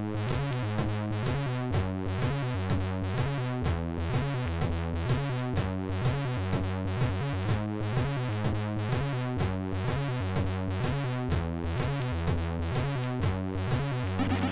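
Commodore 64 SID chip music: a synthesized chiptune with a stepping bass line, chords and regular drum hits keeping a steady beat.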